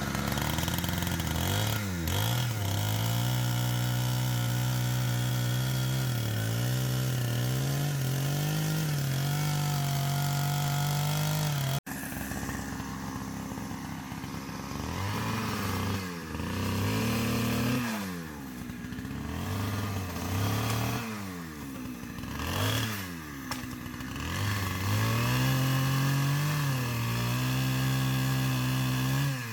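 Chainsaw engine running at high speed. After a sudden break about twelve seconds in, it revs up and down several times, its pitch sagging and recovering.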